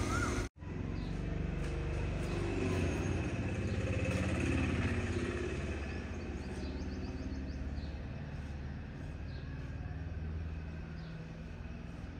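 A steady low mechanical hum, a motor or engine running.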